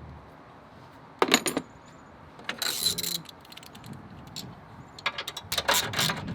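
Light clinks, taps and a short scrape of metal hardware and plastic parts being handled while an aftermarket intake's bracket and heat shield are fitted into an engine bay. A cluster of clicks comes about a second in, a scrape near the middle, and a quick run of clinks near the end.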